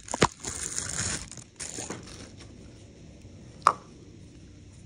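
Plastic Ninja blender cups and a lid being handled: plastic wrap rustles, with small knocks in the first second and a half, then one sharp plastic knock about three and a half seconds in.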